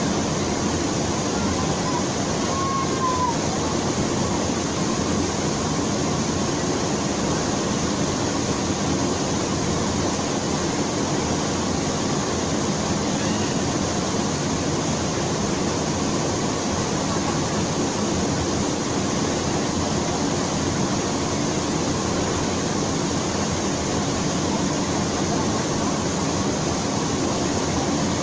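Waterfall's falling water, a steady, even rush of noise.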